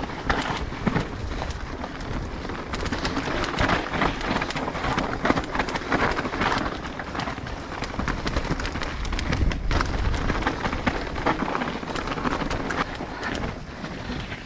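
Mountain bike descending a dirt singletrack: tyres crunching over dry leaves, dirt and loose stones, with frequent sharp rattles and knocks from the bike and a low rumble underneath.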